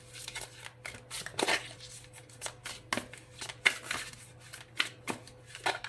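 A deck of tarot cards being shuffled by hand: irregular soft slaps and flicks of the cards, a few a second.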